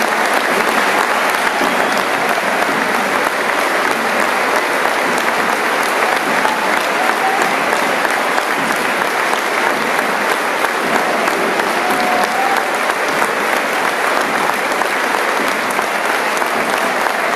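Large football stadium crowd applauding, a steady dense clatter of many hands clapping, with a few voices briefly rising out of it.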